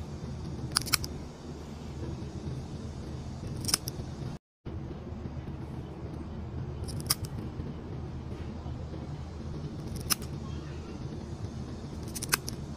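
Scissor-type pet nail clipper snipping a cat's claws: sharp, crisp clicks, a quick pair about a second in, then single snips every two to three seconds, over a steady low hum.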